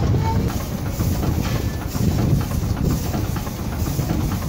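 J & H McLaren steam traction engine running on steam, its flywheel and motion work turning with an even, rapid beat of knocks over a low rumble.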